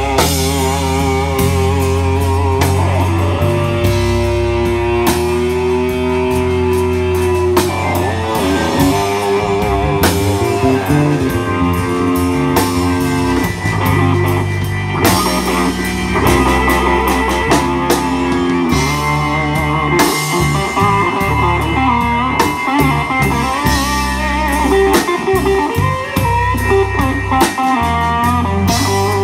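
Live blues band: a Fender Stratocaster electric guitar plays a lead solo with bent, wavering notes, backed by a drum kit.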